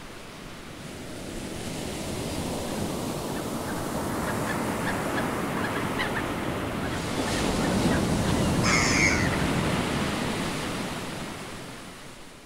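Sea waves washing onto the shore, a steady surf that swells and then fades out near the end. A short bird call is heard about nine seconds in.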